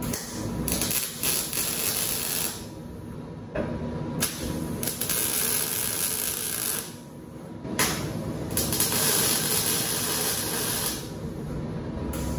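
Wire-feed (MIG) welder tack-welding steel roll-cage door-bar tubing, the arc hissing in several bursts of one to three seconds with short pauses between.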